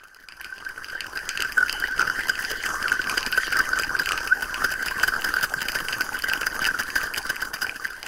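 Layered experimental sound-effect texture: a dense, rapid crackling rattle over a steady whining tone, fading in over the first second.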